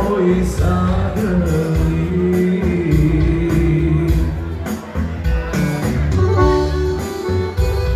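Loud amplified live band music with a male singer singing into a microphone, over guitar and a steady low beat.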